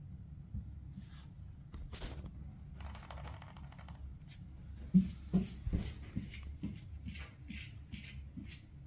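Maine Coon kitten's claws clicking on a tiled floor as it walks: a quick string of light ticks from about five seconds in, after a brief rustle.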